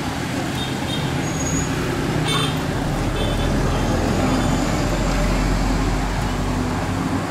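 Steady street traffic noise, with a low engine rumble swelling in about three seconds in and fading near the end.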